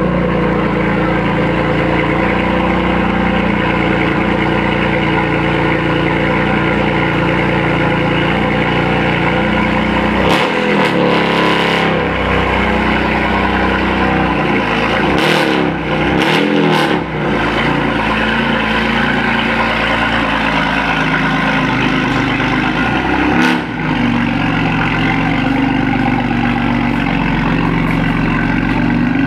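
BMW M4's twin-turbo inline-six with its sport exhaust idling steadily, then revved in a few short blips around the middle, the pitch rising and dropping back to idle each time.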